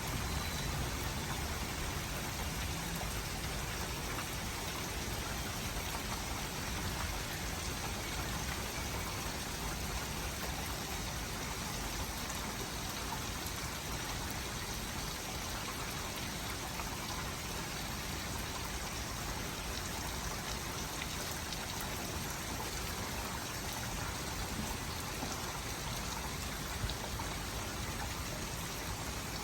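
Heavy rain falling steadily during a thunderstorm, a constant even hiss.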